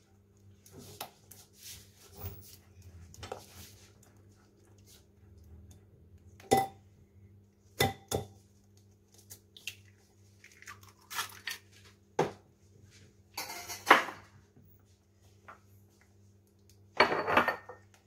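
Spatula stirring and scraping a thick chocolate batter in a glass bowl, with sharp clinks against the glass and an egg being cracked into the mix partway through.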